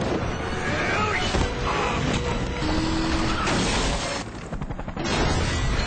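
Action-film trailer soundtrack: dramatic music mixed with crash and boom effects. It dips briefly and goes muffled a little past four seconds in.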